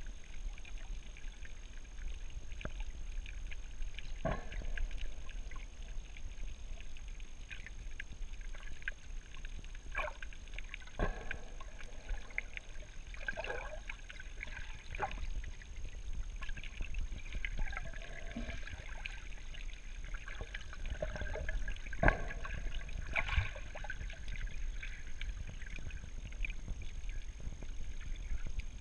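Underwater sound through a GoPro's waterproof housing during a scuba dive: a steady muffled low rumble with scattered clicks and knocks, the sharpest about three quarters of the way through.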